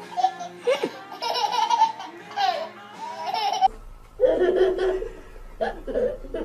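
Babies laughing: high-pitched giggles in the first few seconds, then from about four seconds in, a baby's hearty belly laughs in repeated bursts.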